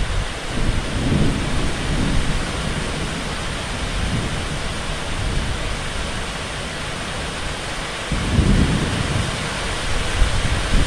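Heavy rain falling steadily, a constant hiss, with low rumbles rising about a second in and again after about eight seconds.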